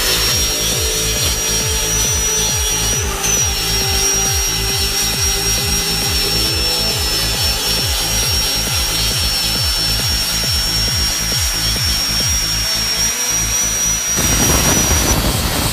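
Small disc sander with a quick-change sanding disc running at high speed, a steady high whine over the rasp of the disc working a surface in repeated strokes. The whine stops about a second before the end.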